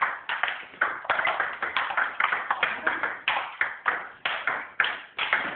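Table tennis rally: the ball clicking off bats and table in quick, uneven succession, about three or four hits a second.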